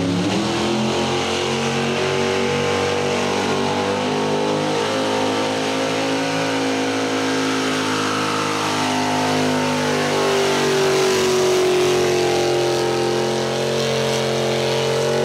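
Mega truck engine revving up and held at high revs under load, steady for many seconds with a slight waver about two-thirds through, the revs starting to drop at the very end.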